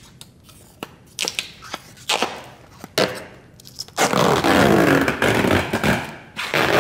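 Adhesive protective transport film being peeled off a car door. It crackles and ticks at first, then about four seconds in gives a loud continuous ripping noise for a couple of seconds as a wide sheet is pulled free, with one more short rip near the end.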